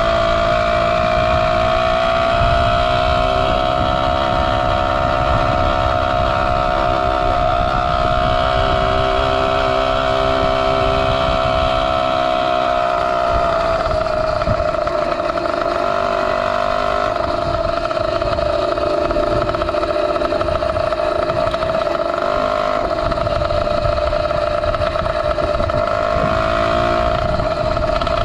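Zeda 80 two-stroke motorized-bicycle engine running at steady high revs under way, its pitch easing slightly about halfway through. Wind rumbles on the microphone underneath.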